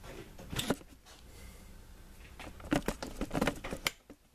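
Light clicks and rattles of small parts and wires being handled on the workbench, one pair of clicks near the start and a quick run of clicks and knocks in the second half.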